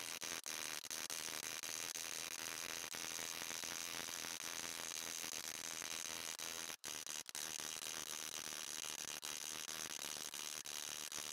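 Hammer striking a thin fine-silver cup on a metal stake during raising, sped up so the blows run together into a steady, dense metallic clatter, with brief dropouts such as one about seven seconds in.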